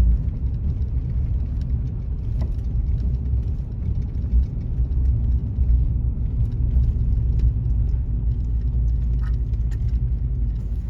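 Car driving along a road: a steady low rumble of engine and tyre noise, with scattered light ticks.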